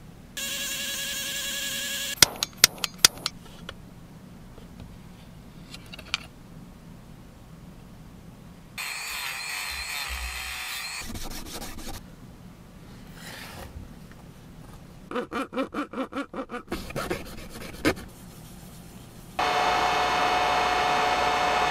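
Workshop tool sounds in short spells: a brief steady whir and a few sharp clicks, then a small handheld rotary tool grinding a tiny plastic part, its whir wavering under load. A quick run of rhythmic pulses follows, and near the end a heat gun blows steadily with a humming tone.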